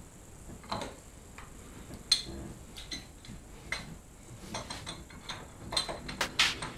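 Irregular metallic clicks and taps from tools and parts being handled while a motorcycle front fork is worked on by hand. The clicks come sparsely at first and grow more frequent toward the end.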